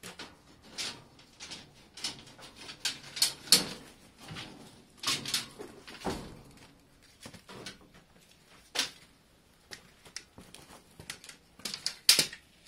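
Irregular knocks, clunks and scrapes of stored items being shifted and pulled out from behind a tank in a cluttered shed, with a louder knock near the end.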